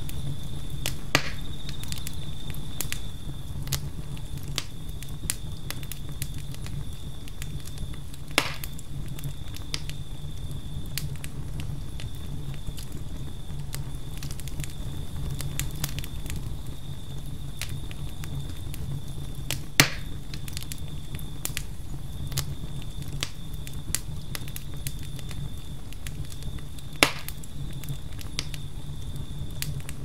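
Campfire crackling with frequent small pops and four louder snaps spread through, over a steady low rumble. Crickets trill steadily in the background as one unbroken high note.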